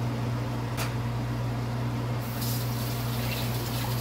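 Kitchen tap running into the sink from about two seconds in, over a steady low hum; a single click about a second in.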